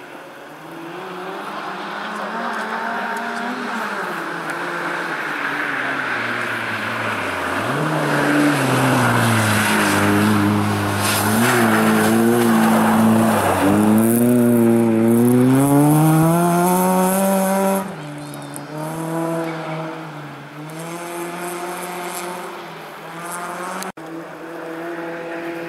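A rally car's engine revving hard as it approaches, then lifting and dropping through the gears while the car slides through an icy corner, with tyre noise on the ice; it then accelerates away with a long rising rev. After a sudden drop in loudness a second rally car's engine is heard approaching.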